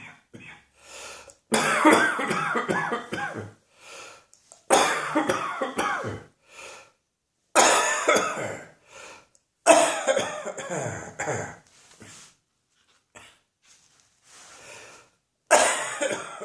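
A person coughing in five fits of several hard coughs each, with a longer pause before the last fit near the end.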